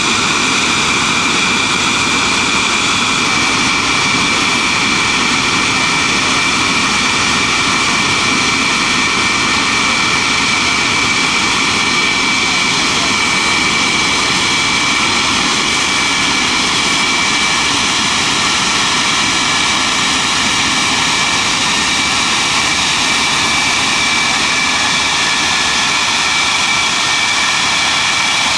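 English Electric Lightning's twin Rolls-Royce Avon turbojets running at low taxi power: a steady high whine over a rushing roar.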